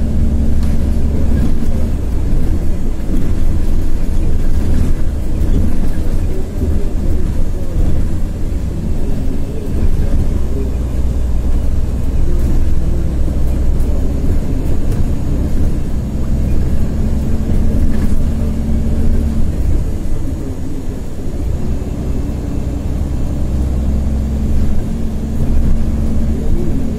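A Heuliez GX337 city bus on the move, heard from inside: its Iveco Tector 7 six-cylinder 6.7-litre diesel runs under way, with road noise. A low steady hum drops in and out several times.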